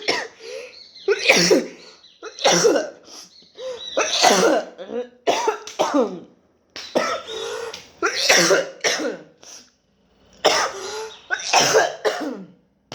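A person sick with COVID-19 in a coughing fit: about a dozen hard coughs in bouts, roughly a second apart, with short pauses for breath between.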